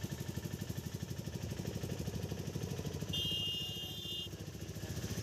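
Small auto rickshaw engine running with a rapid, steady pulsing beat. About three seconds in, a high-pitched horn beeps once for about a second.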